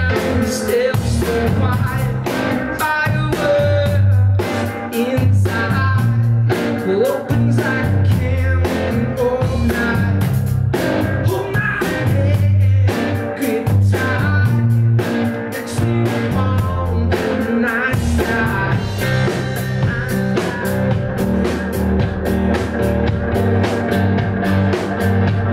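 Live blues-rock played by a duo: electric guitar and a Ludwig drum kit keeping a steady beat, with a man singing.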